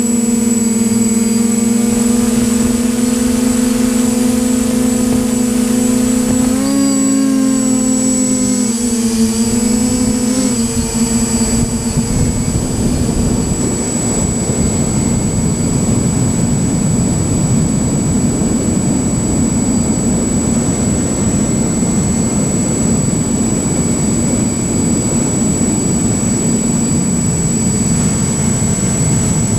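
Onboard sound of a small remote-controlled aircraft's electric motor and propeller: a steady hum with a thin high whine above it. The pitch wavers about seven seconds in. From about twelve seconds on, the hum sinks under a steady rush of wind over the microphone.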